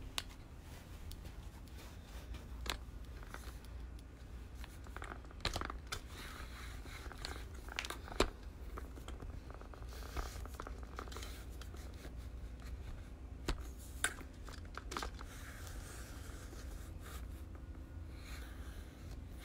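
Handling noise from a camera being moved and adjusted: scattered clicks and knocks with bits of rustling, over a low steady hum. The sharpest knocks come about five and a half, eight and fourteen seconds in.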